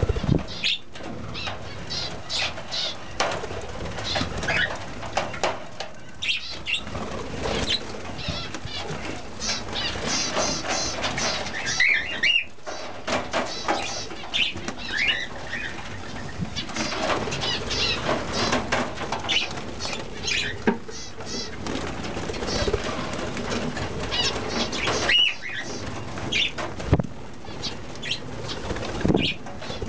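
Aviary budgerigars and zebra finches chattering and calling all at once, many short overlapping chirps and warbles, with repeated bursts of wing flapping as birds take off and flutter about.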